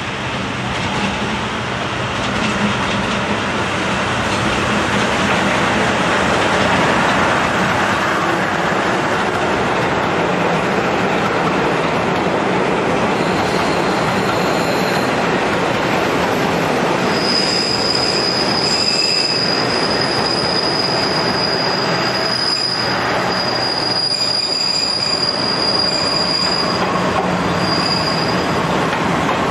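Passenger train rolling in over curved station pointwork, with a steady rumble and clatter of wheels over rail joints and switches. From a little past the middle, a high steady wheel squeal sets in and lasts most of the rest, then fades near the end.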